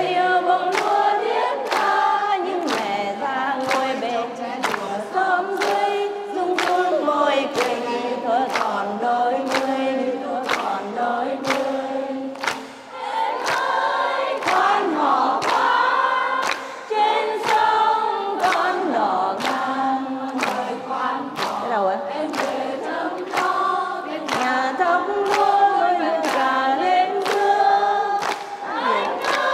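A large crowd singing a song together in unison, with sharp claps keeping a steady beat about twice a second.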